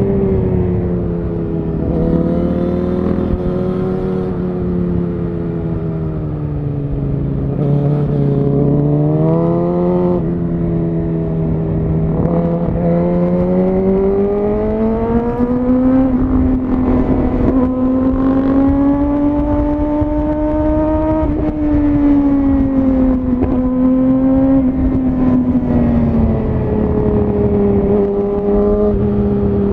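Suzuki GSX-R1000R's inline-four engine through a Yoshimura R-11 SQ exhaust, heard from on board while riding. The note sinks to its lowest around a quarter of the way in, climbs back up through the middle, and eases down again near the end, with a steady rush of noise underneath.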